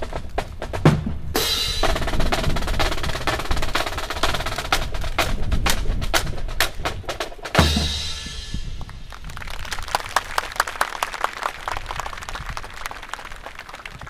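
Drums with snare rolls and bass drum beats playing, with a loud crash about a second in and another heavy hit near the middle. After that come scattered sharp claps that thin out and fade.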